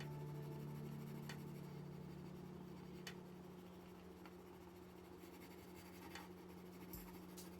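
Faint scratching of a drawing tool on paper, with a few light taps, under a low held music note that fades away.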